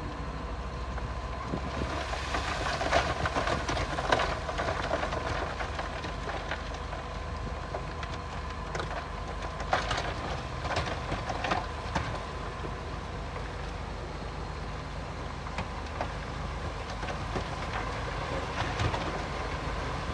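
Bulldozer working stone: its diesel engine runs steadily under bouts of clanking and rattling from the tracks, blade and rocks, a couple of seconds in and again about ten seconds in.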